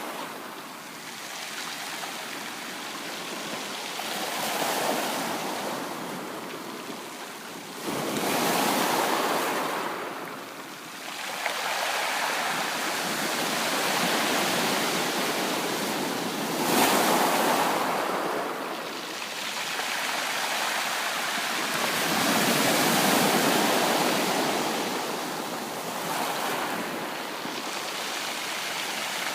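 Sea waves breaking and washing on a shore, surging and ebbing every few seconds with a sharper break about eight seconds in.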